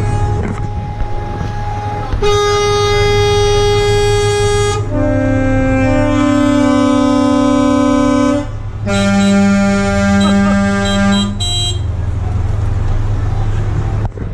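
Truck air horns sounding in three long blasts of a few seconds each, back to back, each on a different pitch or chord of tones, over a steady low engine hum.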